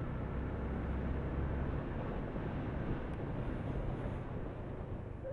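Motorcycle ridden at a steady speed: a low, even engine hum under steady road and wind noise.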